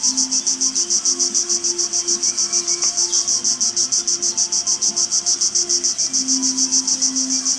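Insect chorus: a loud, high-pitched buzz pulsing fast and evenly, about eight pulses a second, with faint steady low tones underneath.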